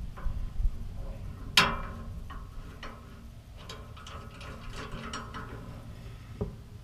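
Ratcheting wrench clicking in short irregular runs as a bolt with a nylock nut is run down, with one sharper metal clank about a second and a half in.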